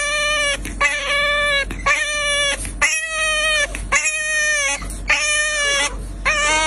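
French bulldog puppy giving a run of high, drawn-out whines, about one a second, seven in all.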